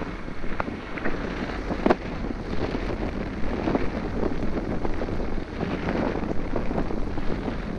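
Wind buffeting the microphone aboard a sailing yacht under way, with a couple of short sharp knocks about half a second and two seconds in.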